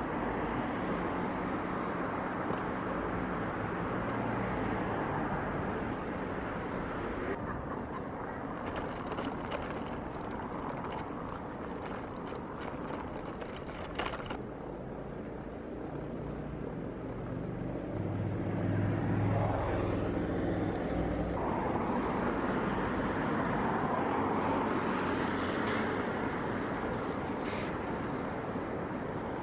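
City street ambience: steady traffic noise with the low hum of motor vehicles, and a louder engine rumble passing about two-thirds of the way through.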